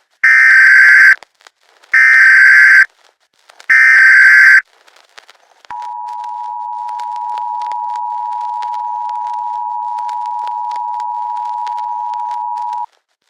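Emergency Alert System broadcast opening: three loud, harsh bursts of SAME header data tones, each about a second long with a second's gap between them. Then comes the EAS two-tone attention signal, a steady dual-pitched tone held for about seven seconds before it cuts off. Together they announce an emergency alert about to be read.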